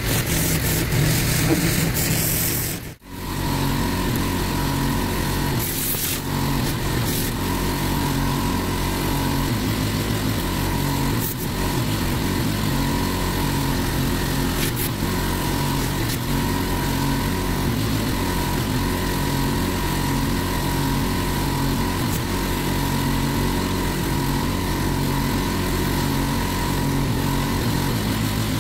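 Engine of a van-mounted pressure washer running steadily. The sound drops out briefly about three seconds in.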